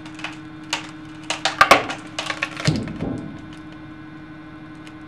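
Wooden boards joined with four large screws cracking and splitting under a hydraulic press: a quick series of sharp cracks, thickest and loudest a little under two seconds in, over a steady hum. The boards are too small for the screws, so the wood splits as the joint gives way.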